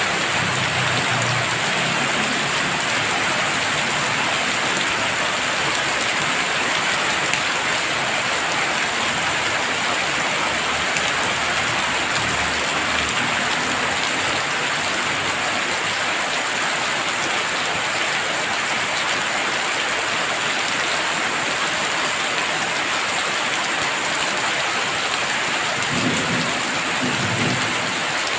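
Heavy rain falling steadily. A low rumble of thunder comes in near the end.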